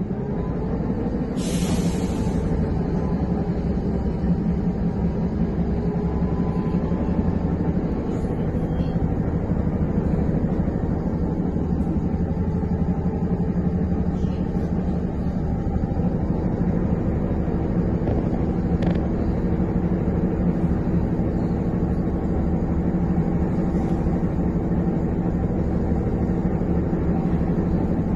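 Steady hum inside a Trolza-5275.06 Optima trolleybus cabin, with the vehicle standing or barely moving in traffic, and a brief hiss about two seconds in.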